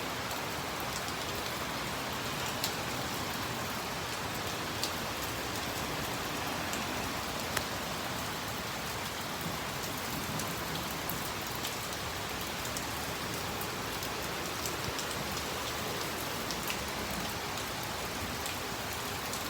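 Steady heavy rain falling, with the sharp ticks of single drops hitting a nearby surface now and then.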